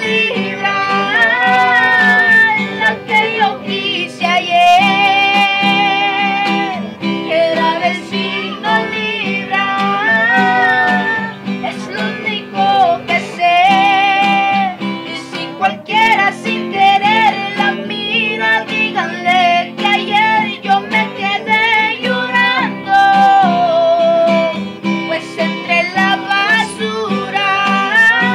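Two young male voices singing together over a strummed acoustic guitar.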